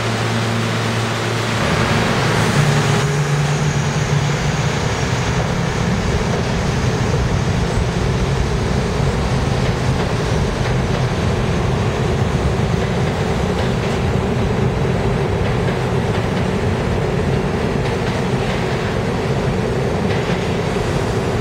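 New York City subway train rolling along a station platform: a steady, even rumble of steel wheels on the rails. It opens with a short steady hum from a train standing at the platform, which gives way to the running train about two seconds in.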